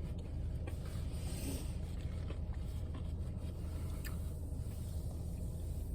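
Steady low background hum with a few faint light clicks and scrapes.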